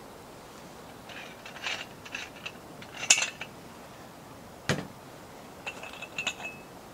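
Scattered clinks and knocks of dishes and utensils being handled. The loudest clink comes about halfway through, a duller knock follows, and a short metallic ring sounds near the end.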